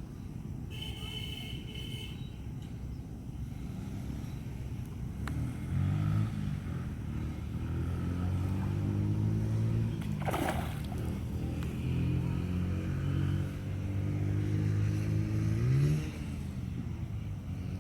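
An engine running unevenly, its pitch shifting up and down and rising sharply near the end, with a brief sharp noise about ten seconds in.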